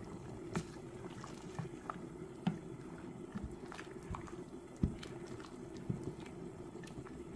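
A pot of water at a rolling boil: a steady low bubbling rumble with irregular small pops and knocks, the loudest about five seconds in.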